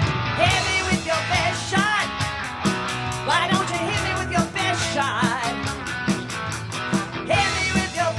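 Live rock band playing an instrumental passage on electric guitars, bass and drums. A lead line of bending, wavering notes runs over a steady beat.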